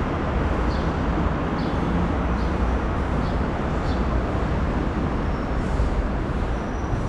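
Steady urban traffic noise with a deep rumble, with faint light ticks repeating about every 0.8 s.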